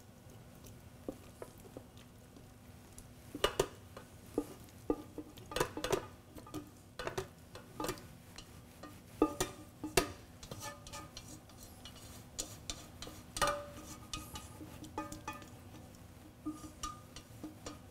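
Irregular clinks and knocks of an enamelware pot against a glass blender jar as cooked vegetables are tipped and scraped in, some clinks ringing briefly; they come thickest between about three and fourteen seconds in.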